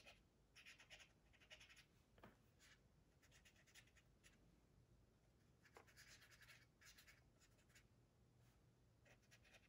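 Faint, intermittent scratchy rubbing of a dry cotton swab worked over the painted plastic of a scale model aircraft, wiping and softening oil-paint weathering, in short strokes between stretches of near silence.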